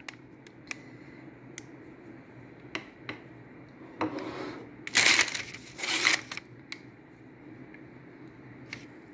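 Clear plastic film lining a glass baking dish crinkling as a raw salmon fillet is laid on it and moved into place, with scattered light clicks and taps. Three louder rustles come about four, five and six seconds in.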